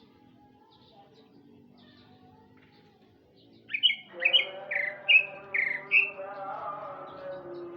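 Male greater green leafbird (cucak ijo) singing: after a quiet start, a loud run of about six sharp, falling whistled notes comes in about two a second, over a fainter lower sound that carries on underneath.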